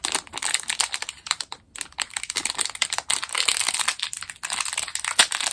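Crinkly plastic packaging being handled and opened by hand, a continuous crackling with many small sharp crinkles.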